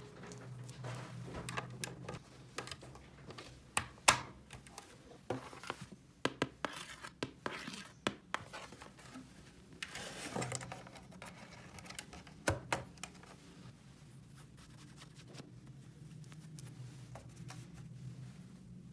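Small objects being handled and worked by hand: scattered taps and clicks with scratching and crinkling, the sharpest taps about four seconds in and about twelve seconds in, over a faint steady low hum.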